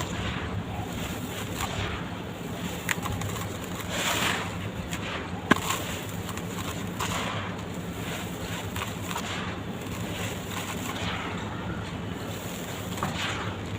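Red dirt being crumbled by hand: scattered soft crunches and crackles, with a sharp click about five and a half seconds in, over a steady low hum.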